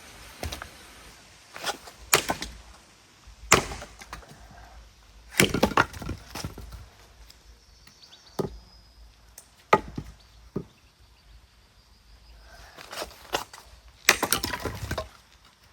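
Wood being chopped and split: a series of irregular sharp cracks and knocks, some single and some in quick clusters, the busiest cluster near the end.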